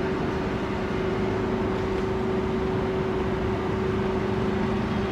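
Steady mechanical hum from a cruise ship's machinery, two held tones over an even rushing noise.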